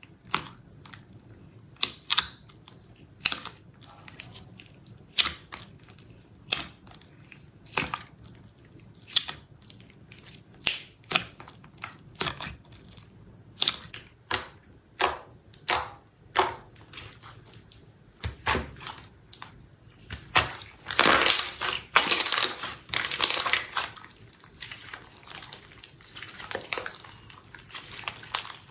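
Slime in a cup being poked and pressed, giving a string of sharp pops and crackles about one or two a second. A denser run of crackling comes about two-thirds of the way through.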